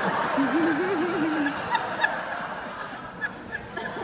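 Audience laughing after a joke; the laughter is loudest at the start and gradually dies away. One nearby person's wavering laugh stands out in the first second and a half.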